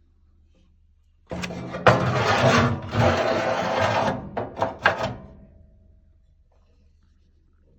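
Scraping and clattering of hard objects being handled for about four seconds, ending in a few sharp knocks.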